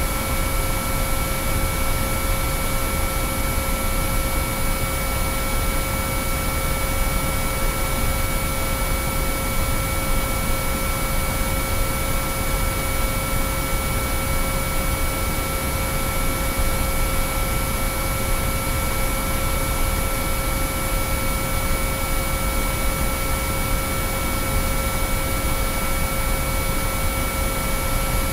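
Binaural-beat track of synthesized sine tones: several steady pure tones, from a mid hum to a high whine, held without change over a constant bed of white noise.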